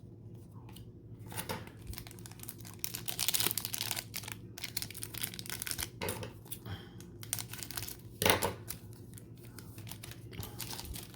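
Foil wrapper of a trading-card pack being torn open and crinkled by hand, in irregular rustling spells, the busiest about three seconds in, with a couple of sharper knocks later on.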